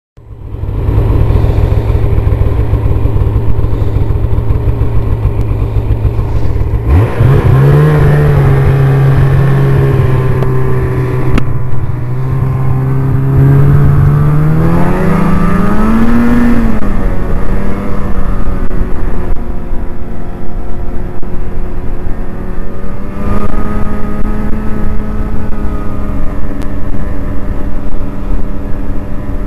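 Snowmobile engine and track running along a snow trail. About seven seconds in, the engine note climbs as it speeds up, rises again and eases back around the middle, then holds a steady cruising note.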